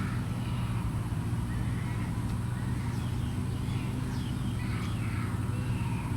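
Birds calling faintly with short chirps and whistled glides over a steady low hum.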